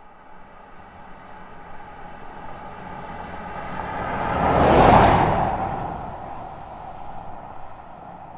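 A car passing by: its engine and tyre noise build steadily, are loudest about five seconds in, then fade away.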